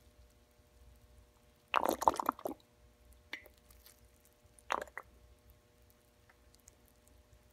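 Water dripping and splattering onto a dried sponge and the wet wooden board under it: a quick cluster of wet drops about two seconds in, a single small drip a little later, and another short cluster of drops near five seconds.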